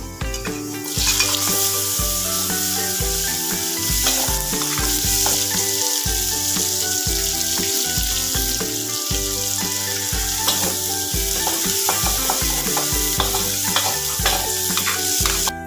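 Sliced garlic, shallots and green chilies sizzling in hot oil in an aluminium wok, a steady frying hiss with a metal spatula stirring and scraping the pan; the hiss comes up about a second in as the chilies go in. Background music with a steady beat plays underneath.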